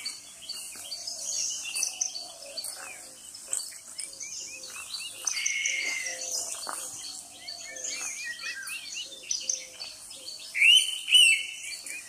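Indian pitta giving its two-note whistle once near the end, two loud arched notes about half a second apart. A busy chorus of chirps and trills from other forest birds runs under it.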